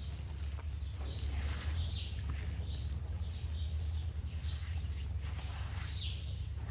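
Birds chirping repeatedly over a steady low rumble.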